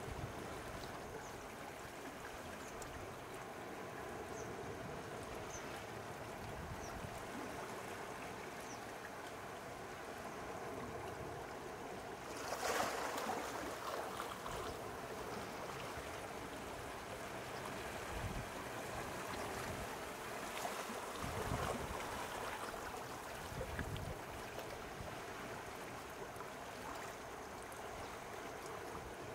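Small sea waves washing and lapping steadily at the shore, with one louder wash about halfway through and a few brief low rumbles later on.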